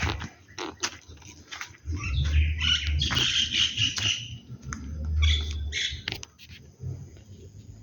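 Birds chirping and calling, with a cluster of rapid high twittering about three seconds in, over a low rumble.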